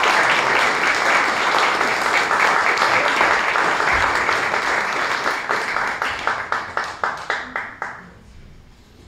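Audience applauding: a dense wash of clapping that thins into scattered separate claps and dies away about eight seconds in.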